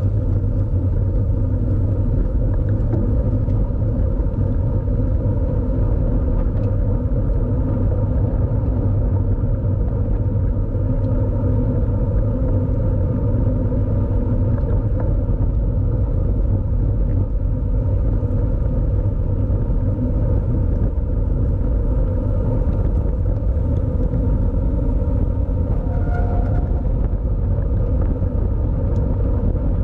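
Steady wind rumble on the microphone of a riding road cyclist's camera, with road and tyre noise underneath. A short faint high tone sounds briefly about 26 seconds in.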